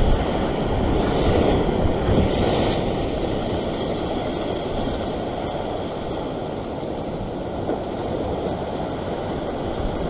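Ocean surf washing and breaking against a rock ledge, a steady rushing noise that is louder in the first few seconds, with wind on the microphone.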